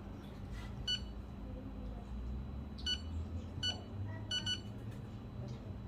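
Short electronic beeps from a kitchen appliance's buttons being pressed, five in all: one about a second in, one near three seconds, one near four seconds, then a quick double beep, over a faint low hum.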